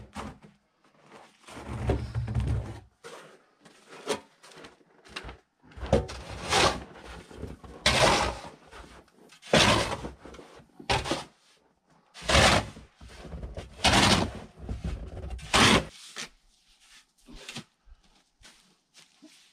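A series of heavy thunks and knocks at irregular intervals, about seven loud ones, with lighter knocks between.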